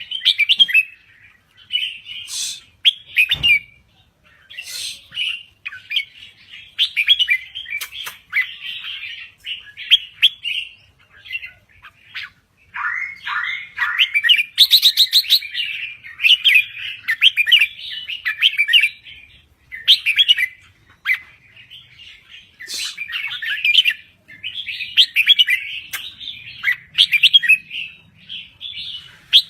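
Red-whiskered bulbul singing non-stop, one short burst of bright warbling whistles after another. There is a single sharp knock about three and a half seconds in.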